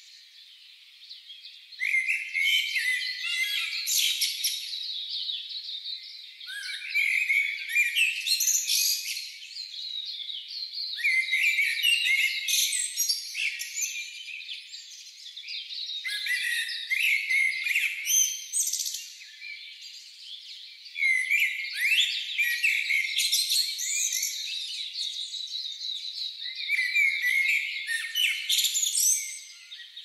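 A songbird singing a short song phrase of two to three seconds, repeated about every five seconds, with fainter chirping between the phrases.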